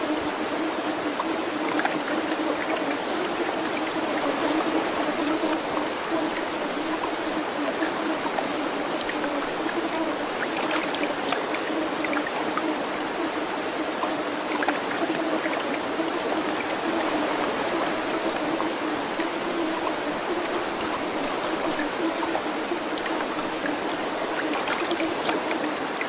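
Steady sound of a flowing stream, running water without a break.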